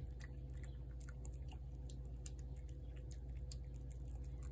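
A cat chewing dry cat food: quick irregular crunches and clicks over a steady low hum.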